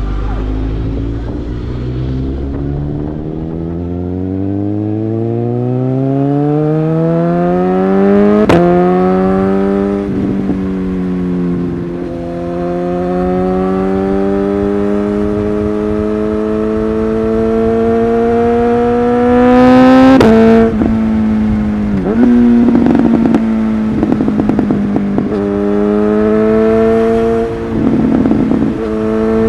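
Suzuki GSX-S1000's inline-four engine through a LeoVince exhaust, accelerating hard. The revs climb for several seconds, then a sharp crack marks a quickshifted upshift, and it pulls on steadily in the next gear. About two-thirds in comes a loud exhaust bang, followed by rapid clusters of exhaust crackles and pops, once more near the end.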